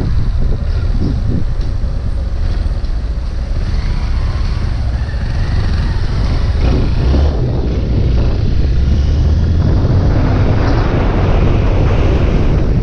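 Honda Bros 160 motorcycle on the move, its single-cylinder engine running steadily under heavy wind noise on the microphone.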